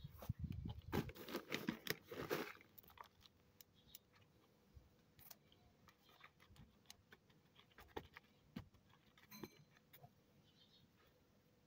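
Hands pressing and crumbling potting soil down into a plant pot: a dense patch of crackling and scraping for the first couple of seconds, then scattered faint clicks and rustles.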